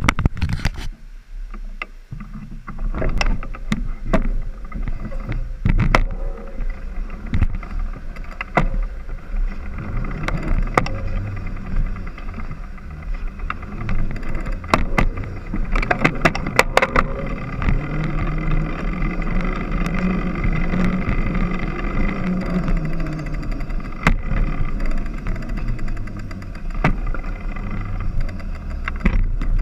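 Trek X-Caliber mountain bike being ridden on pavement, picked up by a camera mounted on its frame: a steady rumble of tyres and drivetrain with frequent sharp clicks and knocks from the frame and chain. A low hum swells and fades between about 18 and 23 seconds in.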